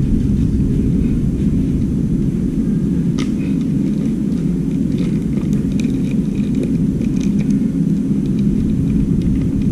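A steady low mechanical drone, with a few faint clicks and knocks over it.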